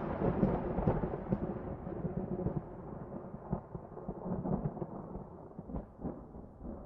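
A deep rumble slowly dying away, with scattered faint clicks over it.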